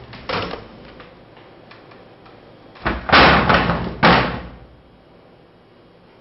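Office cubicle partition panels toppling and crashing onto a desk: a short knock just after the start, then a run of loud crashes and clatters between about three and four seconds in.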